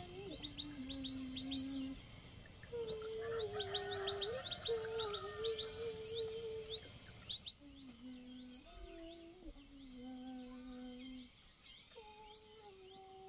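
Small birds chirping in quick runs of short, high notes, busiest a few seconds in, over a woman humming a slow, simple tune in long held notes.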